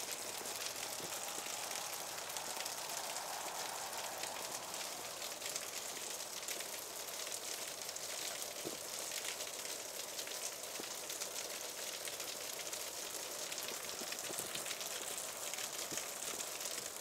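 Light rain pattering steadily, a soft hiss full of fine crackles.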